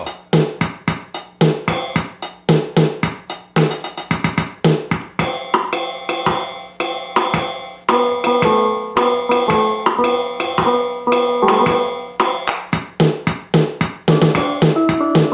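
Music with a steady drum-machine beat; sustained synth-like chords join in about five seconds in.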